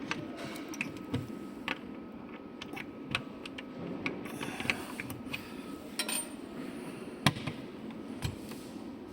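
Workshop background: a steady low hum with scattered sharp clicks and knocks, the loudest about seven seconds in.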